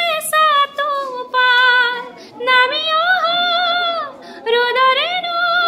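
A young woman singing a song solo and unaccompanied, in long held notes that slide between pitches, with short breaths between phrases.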